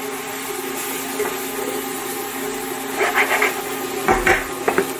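A spoon stirring and scraping vegetables in a frying pan, with two short runs of scrapes and knocks about three and four seconds in, over a steady low hum.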